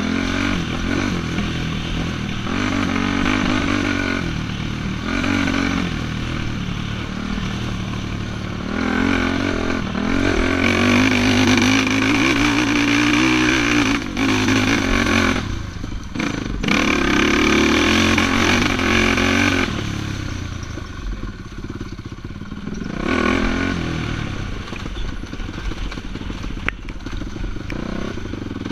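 Racing ATV engine revving up and dropping again and again as the throttle is worked, with two brief throttle cuts about halfway through.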